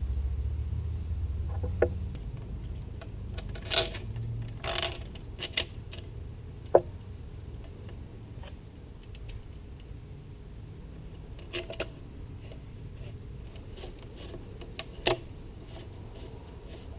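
Scattered light clicks, taps and rustles of handling, with a few sharper knocks, over a low hum; a low rumble fades out in the first two seconds.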